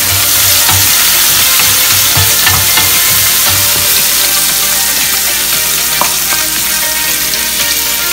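Chopped onion and garlic sizzling in hot oil in a stainless steel wok, stirred with a wooden spatula.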